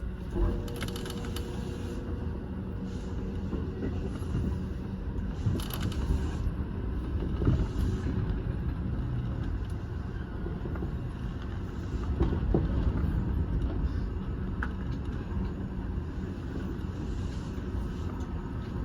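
Electric commuter train running, heard from inside the front car: a steady low rumble of wheels on rail, with occasional light clicks and two short hisses, about a second in and about six seconds in.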